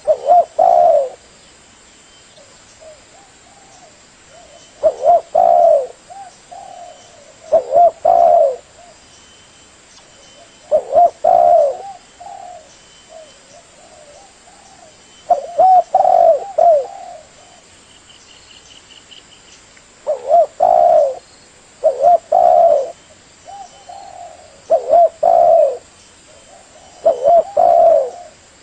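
Spotted dove cooing: short phrases of a few low, rounded coos, repeated every three to five seconds.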